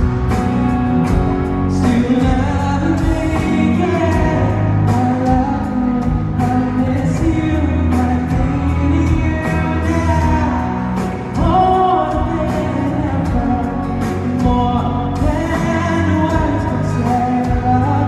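A man singing a song live into a handheld microphone over backing music with drums.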